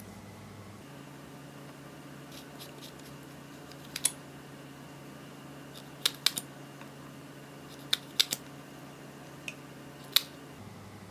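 Sharp, scattered clicks and snaps from hands working clear slime and eyeshadow, some in quick clusters of two or three, with the loudest near the end, over a faint steady hum.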